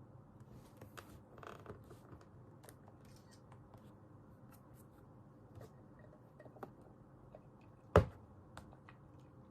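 Quiet desk sounds of someone studying: a brief rustle near the start, scattered light clicks, and one sharp knock about eight seconds in.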